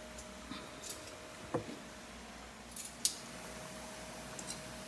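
A few light knocks and clicks of a small drinking glass against a wooden cutting board as fried plantain slices are pressed flat into tostones. The sharpest click comes about three seconds in, over a faint steady hum.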